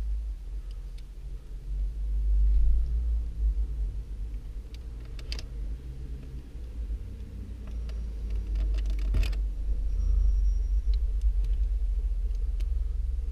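Steady low rumble, with a few sharp clicks about five seconds in and a louder knock about nine seconds in.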